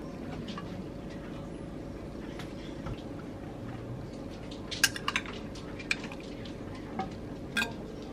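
Metal spoon clinking against a ceramic dish as diced toppings are spooned onto a salad: quiet handling at first, a quick cluster of clinks about five seconds in, then a few single clinks about a second apart, over a steady low room hum.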